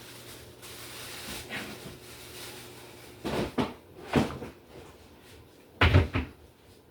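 Kitchen clatter: a few short knocks and clunks as things are handled, the loudest a double knock about six seconds in.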